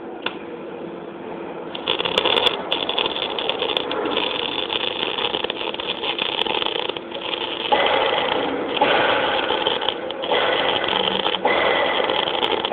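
MIG welding arc crackling and sizzling as the wire feeds, starting about two seconds in and stopping and restarting a few times in short runs.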